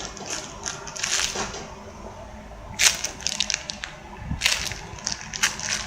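Handling noise: short crackling rustles in four or five brief clusters, made by squishy toys being handled.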